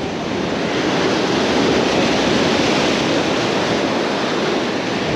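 Steady rush of wind and surf, swelling to its loudest about two seconds in and easing off near the end.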